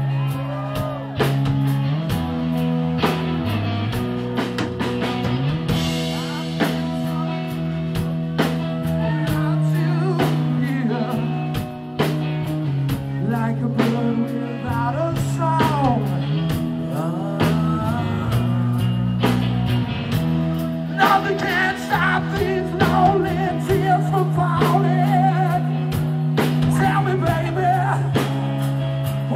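Live rock band playing: held guitar chords changing every few seconds over drums with frequent cymbal hits, and a voice singing over them in the last several seconds.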